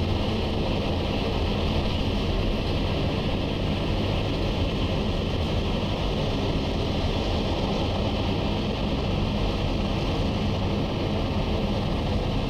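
Automatic car wash at work: a steady, unbroken rushing noise of its machinery and spray.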